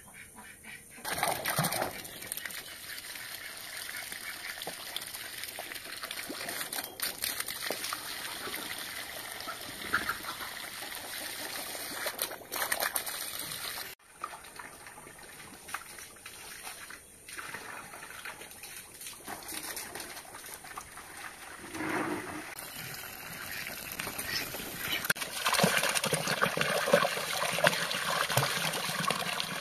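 Water running from a hose into a plastic basin and splashing as bare feet and a sandal are washed in it, with louder splashing near the end.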